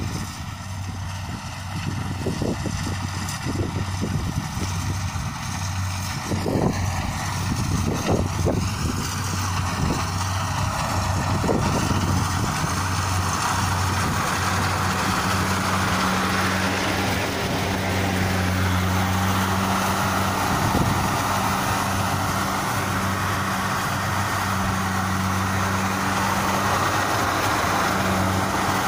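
Kubota DC-60 rice combine harvester running as it cuts and threshes rice: a steady diesel engine hum under the rattle of the threshing machinery. It grows louder over the first dozen seconds, then holds steady close up.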